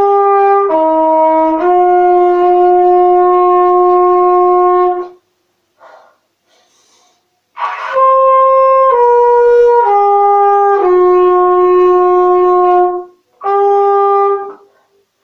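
Solo trumpet playing a slow melody of long held notes: a phrase that ends about five seconds in, a pause of a couple of seconds, a second phrase that stops shortly before the end, then one more held note.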